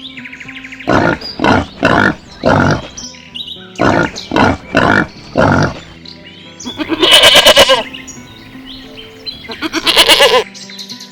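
Animal calls over background music: two runs of four short, loud calls, then two longer, harsher calls.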